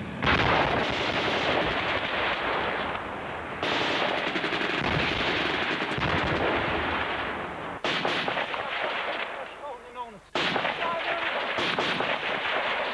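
Long bursts of rapid automatic gunfire. The firing starts just after the beginning, thins briefly about 3 s in, and dies down for a couple of seconds before resuming heavily about 10 s in.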